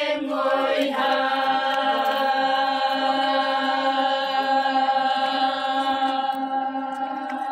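Group of women chanting a Naga folk song in unison, settling about a second in onto one long held note.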